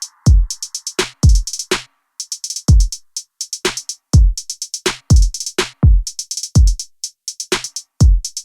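Electronic drum-machine beat: deep kick drums that drop in pitch, about one or two a second, between quick runs of crisp hi-hat ticks.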